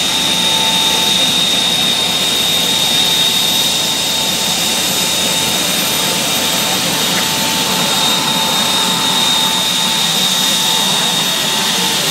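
Converted 1967 Cub Cadet 125 garden tractor's 60-horsepower gas turbine engine running steadily as it drives by: a loud, even rushing noise with a steady high-pitched whine.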